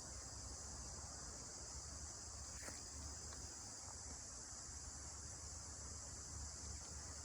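A faint, steady, high-pitched insect chorus that does not let up, over a low rumble.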